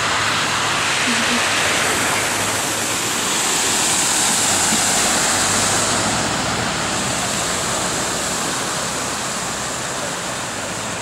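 Floodwater rushing across a street in a steady, even hiss that swells a little midway.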